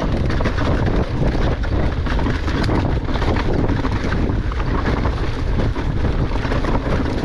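Rocky Mountain Altitude Powerplay electric mountain bike descending a rocky trail at speed: constant wind buffeting on the camera microphone over a busy clatter of tyres, chain and suspension hitting rocks.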